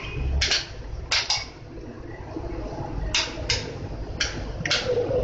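Hand and spoon mixing soaked lentil dumplings (dahi baray) into thick yogurt in a glass dish: about seven irregular squelches and slaps at uneven intervals, over a low handling rumble.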